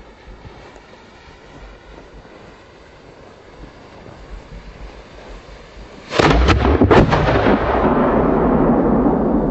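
The fuse of a 200 mm firework shell burns quietly in its mortar, then about six seconds in the lift charge fires with a sudden loud boom and several sharp cracks, followed by a long rumble that slowly fades.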